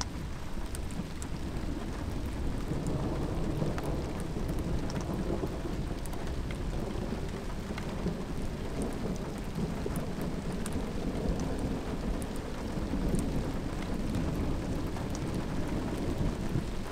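Thunder from a thunderstorm rumbling continuously, swelling and fading several times, with scattered raindrops ticking close by.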